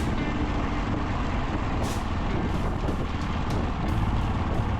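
Single-cylinder engine of a Yamaha XT660Z Ténéré motorcycle running steadily under way, mixed with wind and road noise. There is a brief hiss about two seconds in.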